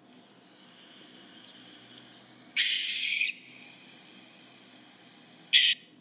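Barn owl screeching: a brief faint note about a second and a half in, then a loud, harsh, rasping shriek lasting under a second near the middle, and a shorter shriek near the end.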